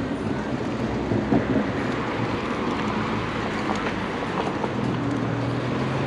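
Street traffic: car engines running and passing, with a steady low engine note that grows stronger near the end.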